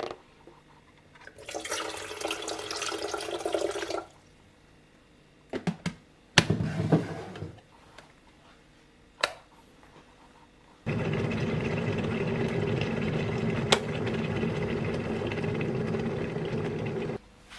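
Water running into a vessel for about six seconds, a steady rush that stops suddenly near the end. Before it come a short hiss and a few clicks and knocks.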